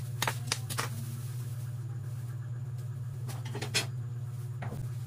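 A steady low hum, with a few light clicks and knocks of kitchenware being handled: a handful near the start and a few more after about three seconds.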